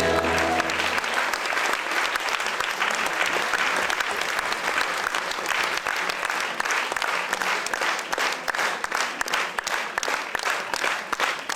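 Audience applauding as the music stops about a second in; the clapping thins toward the end into separate claps.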